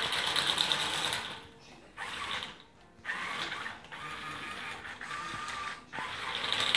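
Remote-control Bumblebee Camaro toy car driving over a tiled floor, its small electric motor and gears whirring in several spurts that start and stop.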